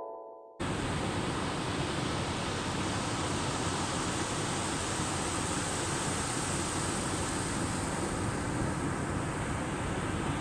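The tail of a marimba jingle dies away, then about half a second in a steady rushing noise cuts in suddenly and holds at an even level.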